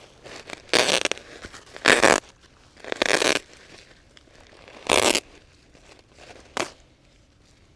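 Woven plastic landscape fabric crinkling and rasping in five short, sharp bursts about a second or two apart as it is pulled and cut.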